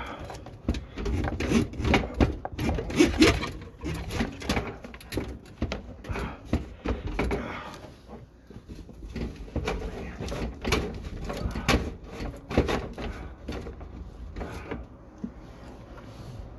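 Irregular knocking, clicking and scraping as a sewer inspection camera and its push cable are fed down a drain line and bump along inside the pipe.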